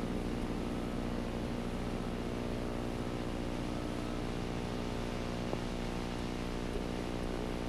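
Diesel engine of heavy road-construction equipment running steadily at one even pitch, while damaged asphalt is dug out for excavation.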